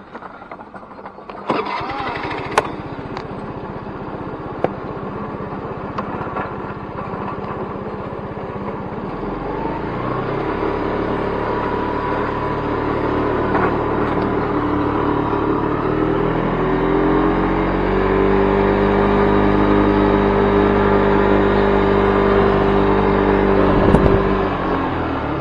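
Honda Vision 50cc moped engine starting about a second and a half in and idling, then rising in pitch as the scooter pulls away and settling into a steady drone at riding speed. A sharp knock near the end.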